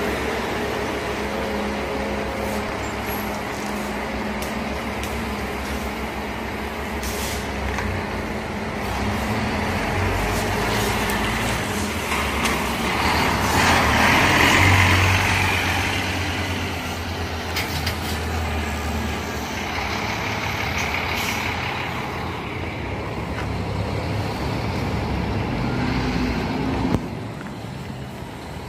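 Scania K360 coach's rear-mounted diesel engine running at low speed while the bus manoeuvres, a steady low drone. The sound gets louder with a rush of air about halfway through, and there are a few short air hisses from the brakes or suspension.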